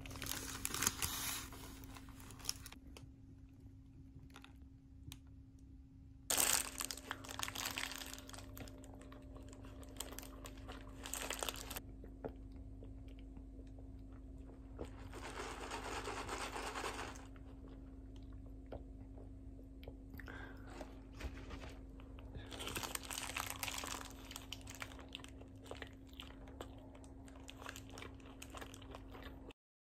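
Paper fast-food bag and burger wrapper crinkling and rustling in several bursts, with biting and chewing of a fried burger, over a steady low hum.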